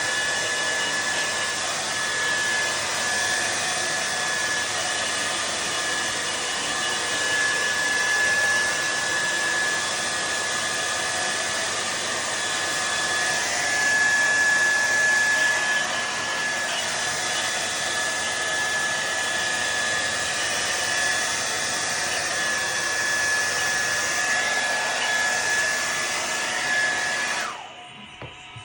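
TRESemmé Smooth and Shine Power hair dryer running steadily, a rushing blow of air with a steady high whine. It is switched off near the end and the sound falls away.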